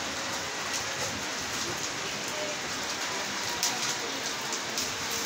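Steady crackling hiss of electric arc welding on a steel grid frame, mixed with falling rain.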